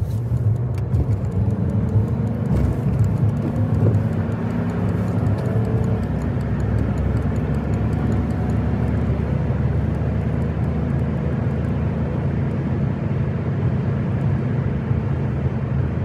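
Steady road and engine noise heard inside a car's cabin while driving at highway speed: an even low hum.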